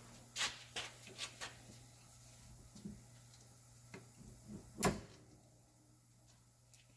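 Light metallic clicks and knocks from tools and parts while a disc brake caliper's retaining pins and clips are being worked out, a few in quick succession at first and a sharper knock a little before the fifth second.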